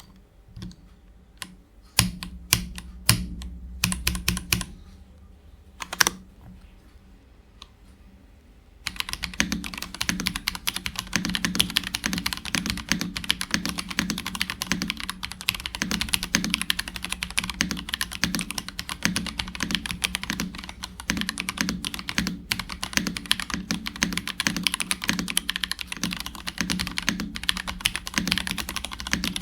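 Typing on an Apollo61 Lite mechanical keyboard with hand-lubed Gateron Beer tactile switches, plastic case and polycarbonate plate: a clacky click on each press. A few scattered presses, some loud, come first, then continuous fast typing from about nine seconds in. Space bar presses carry extra reverb because the microphone arm touches the wall.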